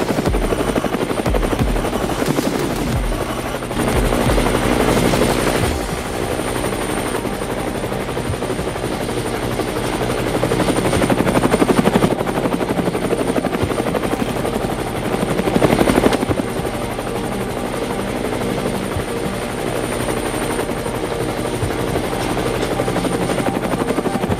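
Helicopter rotor and engine sound, a steady fast beating with a thin high whine over it, swelling a little in places.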